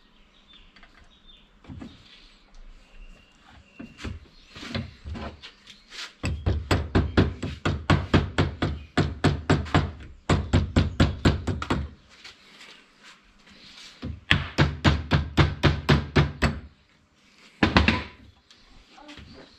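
Fast, regular strokes of a hand tool on the metal of a tractor starter motor under repair, about five a second, in two runs of several seconds and a short burst near the end, with a few scattered knocks in between.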